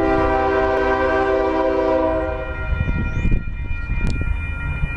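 Union Pacific diesel locomotive sounding its multi-note air horn in one long blast of about two and a half seconds as it approaches at the head of a freight train, over the low rumble of the train.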